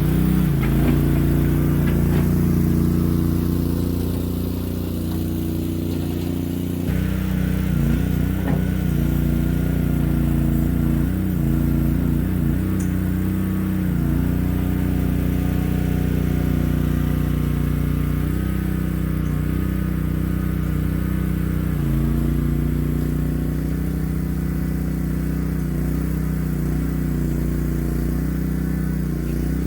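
Boxer 320 mini skid steer's engine running steadily, its pitch wavering briefly a few times as it works.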